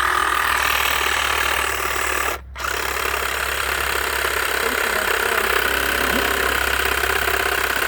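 Power saw running hard and cutting into the trunk of a Christmas tree to notch it. It stops briefly about two and a half seconds in, then starts again and runs on.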